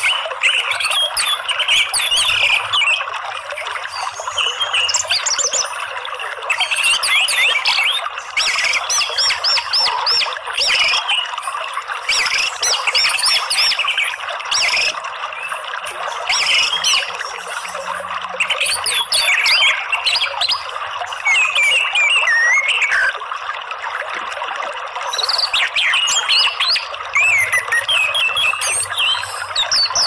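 Orange-headed thrush singing: a run of varied warbling phrases with quick rising and falling whistles, broken by short pauses, over a steady hiss.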